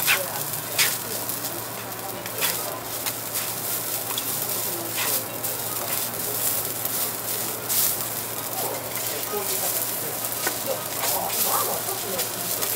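Fried rice sizzling on a steel teppanyaki griddle while two metal spatulas chop and scrape it. Sharp clacks of the blades striking the hotplate come every second or few.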